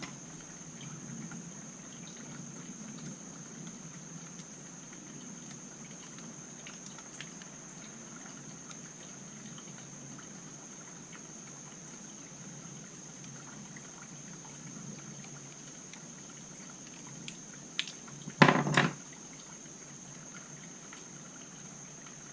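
Small hand tools and carburetor parts handled on a workbench: a few faint light clicks and a short, loud clack about eighteen seconds in, over steady background hiss with a faint high whine.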